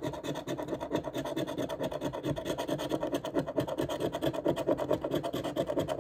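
A large coin scratching the latex coating off a scratch-off lottery ticket on a hard tabletop, in quick, rhythmic back-and-forth strokes, several a second.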